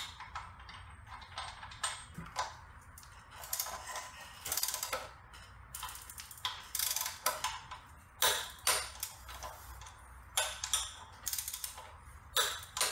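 Socket ratchet wrench turning the front axle nut of a motorcycle, its pawl clicking in repeated short runs as the handle is swung back and forth.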